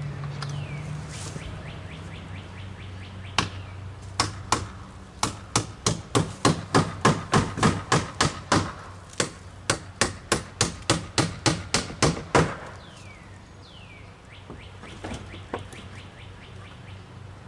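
Hammer driving nails into a wooden fence: a few scattered blows, then a quick, even run of about three strikes a second for several seconds that stops abruptly. A bird calls with short falling chirps near the start and again just after the hammering stops.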